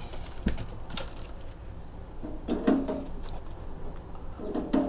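Eggs being taken from a plastic egg tray and lowered into a stainless pot of boiling water: a scattering of light clicks and taps from the plastic tray and the shells, over a low steady hum.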